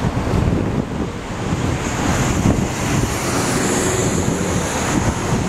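Strong wind buffeting the microphone in gusts over street traffic, with a passing car's hiss in the middle.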